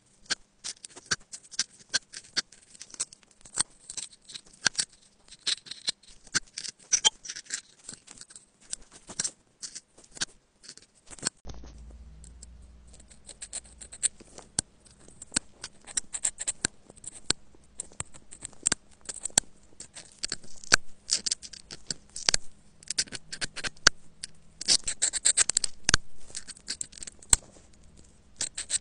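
Close-miked metal pick scraping and picking packed dirt and lint out of a phone's grille openings: a rapid, irregular run of sharp scratchy clicks and scrapes. A faint low hum joins about eleven seconds in.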